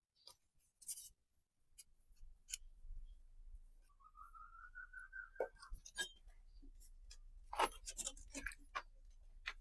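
Light scraping and clicking of a PVC drainage pipe and fitting being handled. A low hum comes in about two seconds in, and a short wavering tone sounds near the middle.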